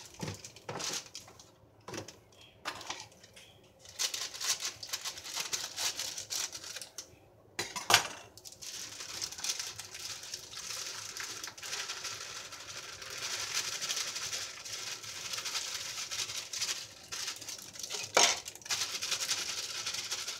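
Dry brownie mix being poured from its plastic pouch into a plastic mixing bowl: a steady hiss with crinkling of the pouch, broken by a sharp knock about eight seconds in and another near the end.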